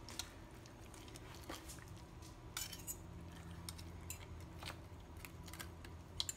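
Knife carving a roasted chicken leg on a plastic cutting board: a few faint scattered clicks and scrapes of the blade against the board, over a low steady hum.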